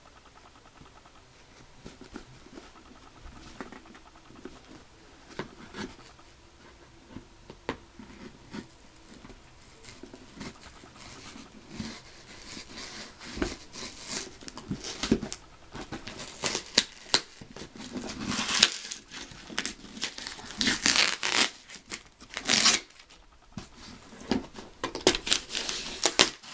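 A cardboard mailing box being torn open by hand. After a quiet start with light handling, from about ten seconds in come repeated ripping of tape and cardboard and crinkling of paper packing.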